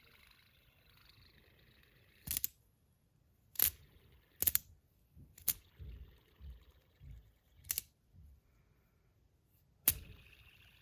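A fidget spinner's soft bearing whir dies out about two seconds in, followed by about six sharp metallic clicks spaced a second or two apart, with soft low knocks of the toy being handled.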